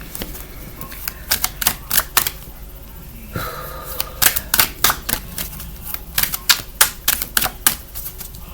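A quick, uneven run of sharp clicks and taps from tarot cards being handled and shuffled, thickest in the second half.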